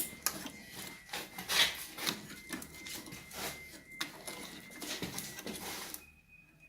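Handling noise of a washer-dryer being reassembled: irregular scraping, rubbing and clicks as parts are worked into place, ending about six seconds in.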